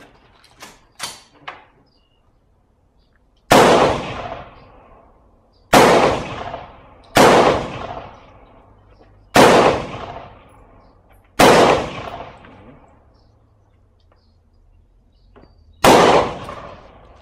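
AR-15 rifle firing six single shots at an uneven pace, one and a half to four seconds apart, each a sharp crack with a long echoing tail. A few light clicks come in the first two seconds, before the first shot.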